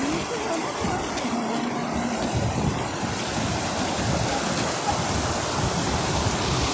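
Steady rushing of a hill river's flowing water, an even hiss.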